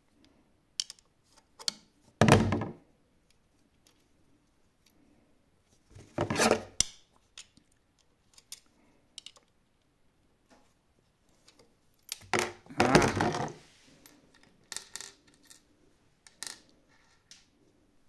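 Metal parts of a Textima sewing machine's presser-foot lifter and latch clacking as they are worked by hand: three louder metallic clatters, the last a longer run of rattles, with light clicks between.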